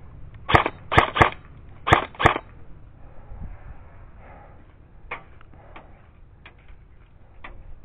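Airsoft rifle firing single shots: five sharp cracks in quick pairs and triples in the first couple of seconds, then a few fainter snaps of shots later on.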